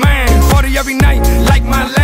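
Hip hop music with a heavy bass line and gliding pitched vocal or synth lines over it.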